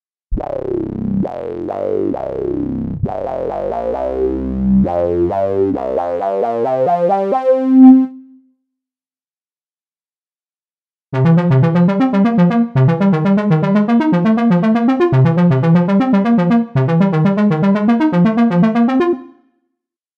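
GForce Oberheim SEM monophonic synthesizer plug-in playing with no external processing. A phrase of notes ends on one loud note about eight seconds in. After about three seconds of silence comes a phrase of quick, evenly repeated short notes.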